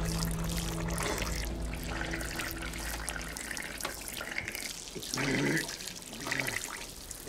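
Water poured in a stream onto a man's face, splashing, with a low music drone that fades out about three seconds in. Twice, about five and six and a half seconds in, the man makes short choked vocal sounds under the water.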